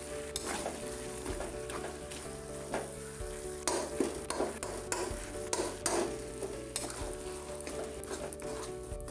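A spatula stirring and scraping a mash of fried rui fish and boiled potato around a pan in irregular strokes, with a light sizzle from the frying.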